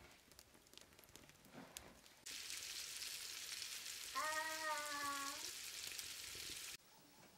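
Small cornmeal-coated bluefish and horse mackerel sizzling as they fry in oil in a pan over a wood fire. The sizzle comes in suddenly about two seconds in and cuts off near the end, with a short pitched tone over it about four seconds in.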